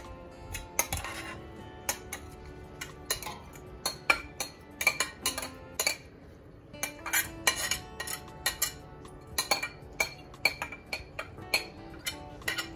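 A metal spoon clinking and scraping against a bowl in quick, irregular knocks as rice is tipped out of it into a pot of dal.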